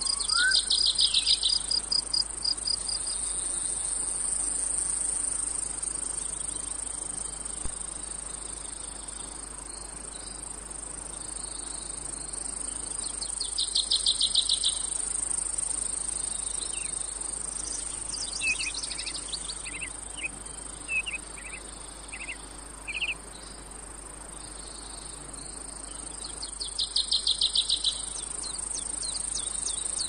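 Cicada chorus: a steady high-pitched drone with loud, rapidly pulsing trills that swell three times, near the start, in the middle and near the end. A few short bird chirps are scattered through it.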